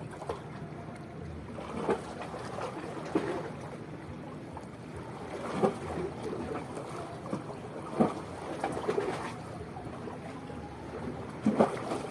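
Small waves lapping at the shoreline, with a few short, louder splashes.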